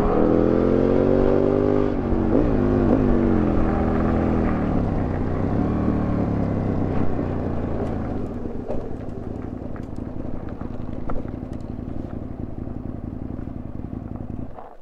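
Aprilia Tuono 1000R V-twin engine under the rider, its revs falling as the bike slows, with a brief dip and pick-up a couple of seconds in. It then runs at low revs, quieter and rougher, as the bike rolls along slowly.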